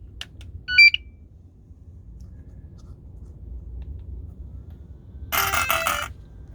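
Electronic power-on beeps from the Arrma Talion's Spektrum Firma electronics as the car is switched on: a quick rising chirp of tones about a second in, then a longer run of stepped tones near the end.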